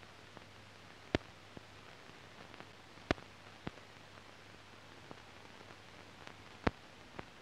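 Faint hiss and steady low hum of an old newsreel film soundtrack with no recorded sound, broken by scattered sharp clicks and pops, the loudest about a second in, about three seconds in and near the end.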